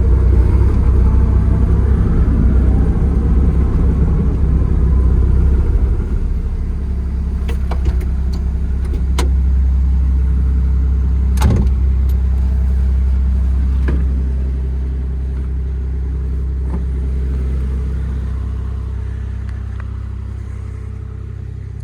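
Kubota KX040 mini excavator's diesel engine running steadily, louder in the first part and again midway, then easing off near the end, with a few sharp knocks in the middle.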